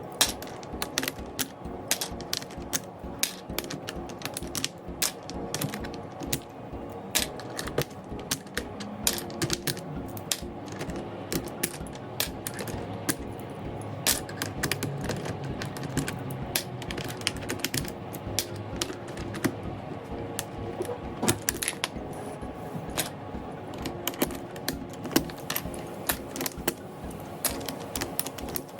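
Rapid, irregular plastic clicks and snaps from work on an Ajazz AK820 Pro mechanical keyboard, its keycaps and switches being taken out and fitted. Soft background music underneath.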